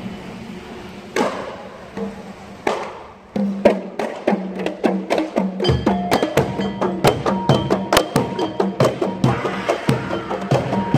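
Kompang, Malay hand-held frame drums, struck by hand in a fast, even, interlocking rhythm. The drumming comes in loudly about three and a half seconds in.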